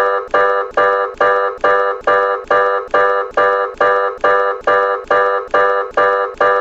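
Electronic emergency alert attention tone: a chord of several tones pulsing about two and a half times a second, each pulse sharp at the start and fading.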